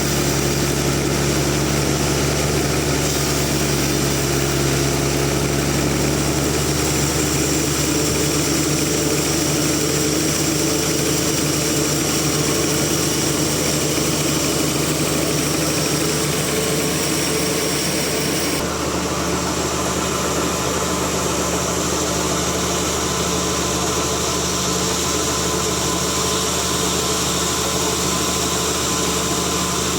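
Big sawmill machine running steadily as it works a giant rain tree log, a loud even engine-driven hum with a shift in tone about two-thirds of the way through.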